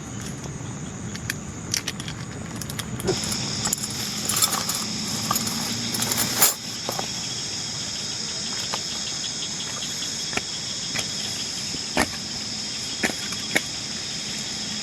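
Steady high-pitched insect chorus that grows louder about three seconds in, with scattered light clicks and clinks.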